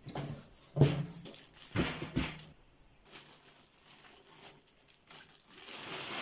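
Packaging being handled: cardboard box flaps opened with a few dull thumps and irregular rustling, then a clear plastic bag rustling louder near the end as it is pulled off a snare drum.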